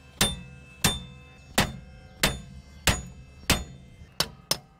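Hammer blows on a seized rear wheel hub bearing assembly of a Toyota Sienna AWD, each blow leaving a metallic ring. Six even strikes come about two-thirds of a second apart, then three lighter, quicker ones near the end. The rusted hub is stuck in its knuckle and is being beaten loose.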